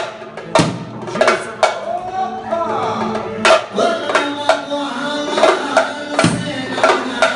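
Music: a drum strikes a steady beat under held, melodic pitched lines.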